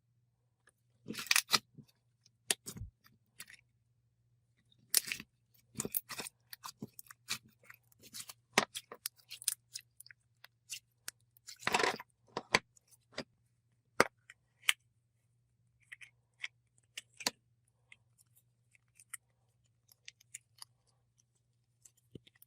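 Thick, glossy slime being squished, stretched and poked by hand, making irregular sticky clicks, crackles and small pops.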